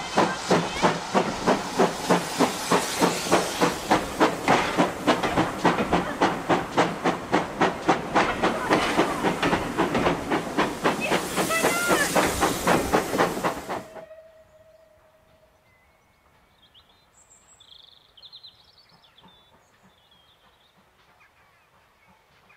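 GWR Large Prairie 2-6-2 tank engine working under steam, its chimney exhaust beating in a fast, even rhythm over a constant hiss. About fourteen seconds in the sound cuts off suddenly to near quiet with a few faint chirps.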